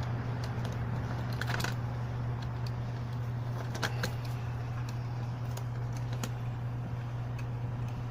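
Scattered light clicks and taps of hand work on a plastic sprinkler controller case, over a steady low hum.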